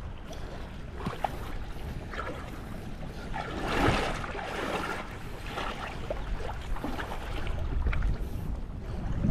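Shallow seawater sloshing and splashing around a person wading, with the biggest wash about four seconds in. Wind rumbles on the microphone underneath.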